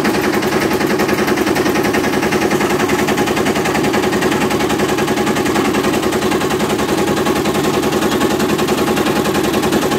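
Diesel engine running nearby with a rapid, even chugging.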